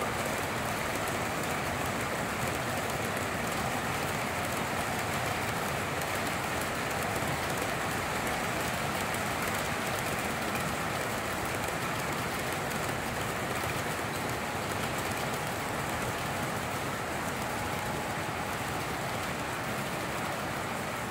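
Long S gauge model freight train rolling by close at hand: the metal wheels of the cars running over the track make a steady rolling noise.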